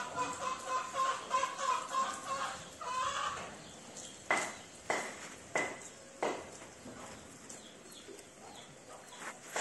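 Chickens calling: a long drawn-out rooster crow over the first few seconds, then four short, sharp clucks in quick succession.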